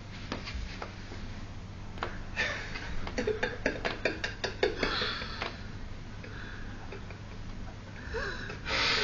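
Close, breathy snorts and exhalations, a few short puffs about two and a half seconds in, around five seconds in and again near the end, among scattered small clicks and taps.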